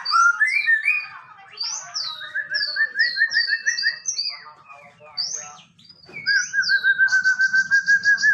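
Male white-rumped shama singing a varied, loud song of clear whistled down-slurred notes and rapid repeated notes, breaking about six seconds in into a long, fast warbling trill.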